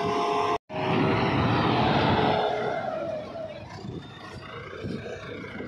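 Backhoe loader's diesel engine running steadily, cut off for a split second just after the start. About three seconds in its note falls and it gets quieter.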